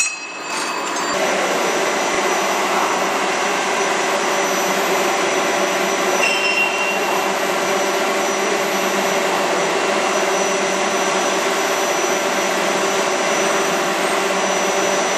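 One last sharp blow from the forging hammer right at the start, then a loud, steady rushing machine noise with a faint hum running through it.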